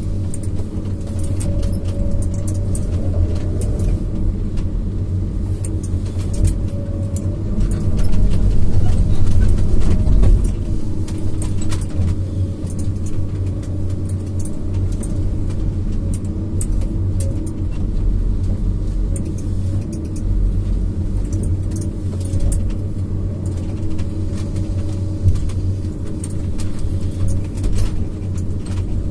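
Diesel engine and hydraulics of a Komatsu PC200F tracked harvester running steadily, heard from inside its cab, with scattered clicks and rattles as the 370E harvester head works. The engine swells briefly about a third of the way through.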